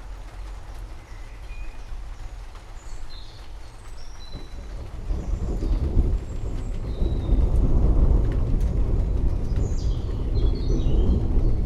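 Rain falling steadily while forest birds chirp, with a low rumble of thunder that builds about four seconds in and keeps rolling.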